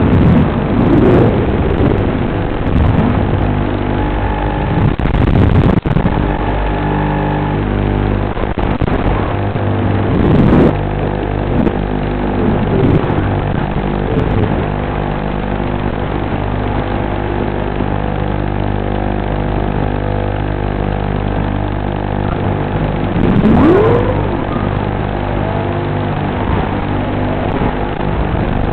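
Micro FPV quadcopter's brushless motors whining over a steady hum, the pitch sliding up and down with the throttle. The clearest rise comes near the end, with shorter swells earlier on.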